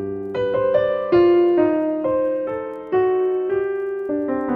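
Background piano music: a slow, gentle melody of struck notes, each ringing and fading as the next one comes in.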